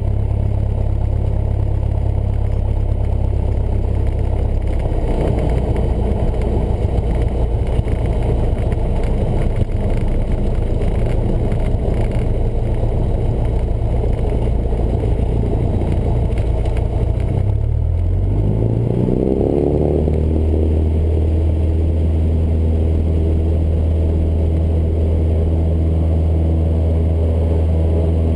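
Cessna 172's piston engine and propeller running at takeoff power through the takeoff roll, heard from inside the cabin. Its pitch shifts about eighteen seconds in, then holds steady.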